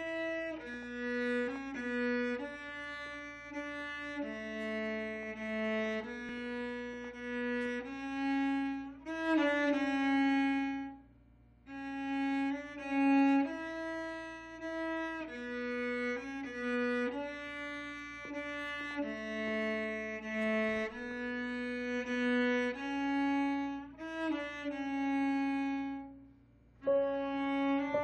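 Solo cello bowing a slow, legato melody, one sustained note at a time, with short pauses about 11 seconds in and near the end.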